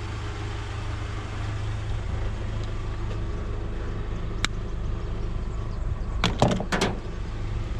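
Vehicle engine running with a steady low rumble, with a sharp click about four and a half seconds in and a few quick knocks near the end.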